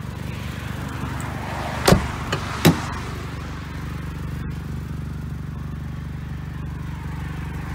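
1999 Nissan Altima's four-cylinder engine idling steadily, with an exhaust leak that the owner points out. Two sharp clunks about two seconds in, from the rear door being opened.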